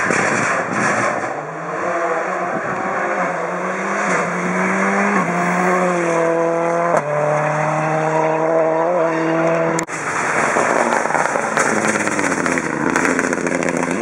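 Rally car engines at full throttle on a closed road stage. One car accelerates through the gears, its note climbing and dropping back at upshifts about five and seven seconds in. About ten seconds in it cuts abruptly to a denser rush of engine and wind noise.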